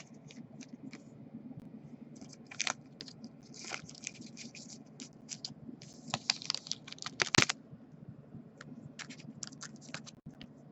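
Baseball trading cards being handled and flipped through: irregular light clicks and scrapes of card stock sliding against card stock, with a sharper snap about seven seconds in.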